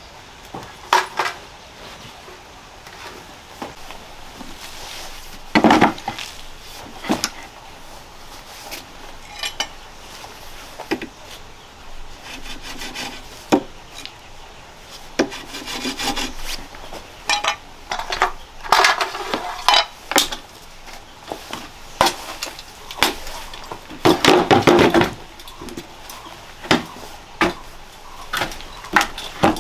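Wood being handled and worked by hand: irregular knocks, scrapes and rubs of wood on wood, with a couple of longer scraping stretches past the middle.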